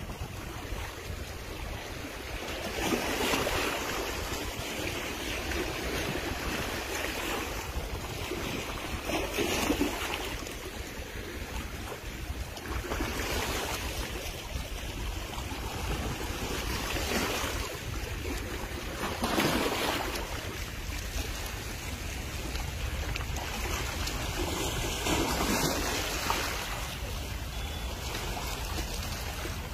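Small sea waves washing against the shore, swelling and fading every few seconds, over a steady low rumble of wind on the microphone.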